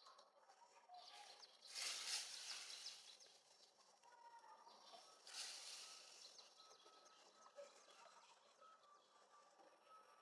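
Faint outdoor ambience with distant bird calls and two brief swells of hissy noise, about two seconds in and again about five seconds in.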